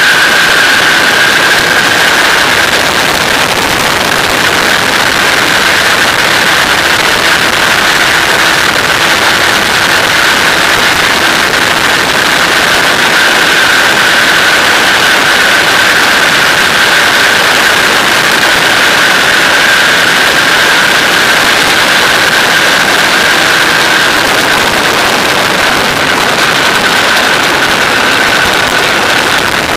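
Microlight aircraft's engine and propeller running steadily in cruise flight, a constant drone with a steady high whine, under loud rushing airflow noise.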